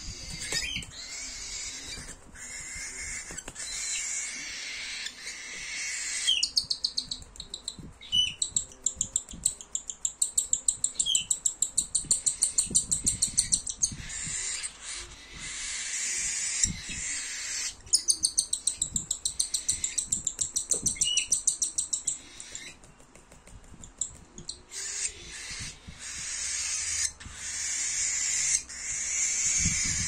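A hand-fed young cockatiel making its raspy, hissing food-begging call. Through the middle the hiss breaks into rapid rhythmic pulses about five a second, with a few short rising chirps, and it eases off briefly near the end.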